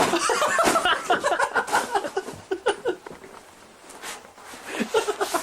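Men laughing and talking indistinctly, with a short sharp knock about four seconds in.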